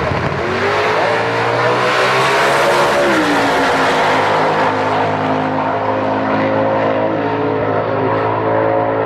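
Drag-racing cars launching at full throttle and accelerating down the strip. The engine note climbs for about three seconds, drops sharply once at a gear change, then runs on steadily as the cars pull away.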